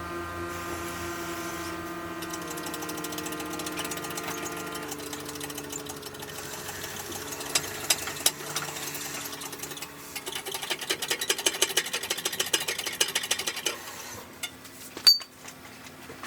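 Power tool, most likely an impact wrench, turning the bolt of a bushing press to drive a new rear trailing-arm bushing into a Honda Civic's arm. It whirs steadily at first, then rattles rapidly in hammering bursts about ten seconds in, as the press takes the load.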